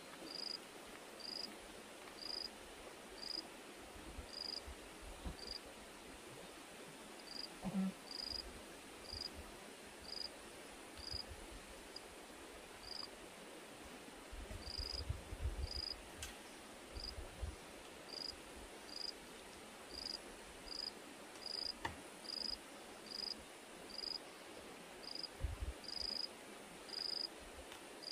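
Insect chirping: a short, high chirp repeated about once a second, fairly evenly, over a faint background hiss.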